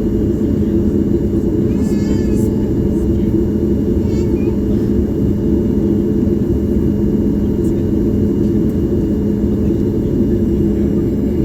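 Steady low rumble and hum of a Boeing 737 MAX 8 cabin on the ground after landing, with faint voices about two and four seconds in.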